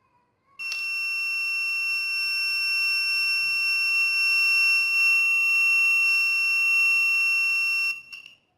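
Buzzer of a homemade transistor tripwire alarm sounding one steady high-pitched tone, starting about half a second in and cutting off abruptly after about seven seconds.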